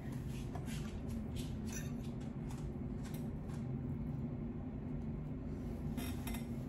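Quiet chewing and mouth sounds from someone eating, heard as faint, irregular clicks over a steady low room hum.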